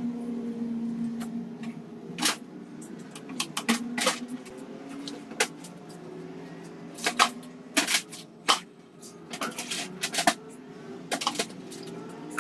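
Irregular sharp metal clinks and knocks of hand tools and parts being handled on a gearbox fitted to an engine block, over a steady low hum.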